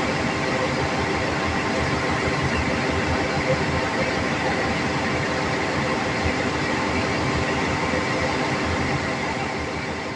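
Steady rumble and hum of a passenger train, with many steady machine tones under a dense noise. It begins to fade out near the end.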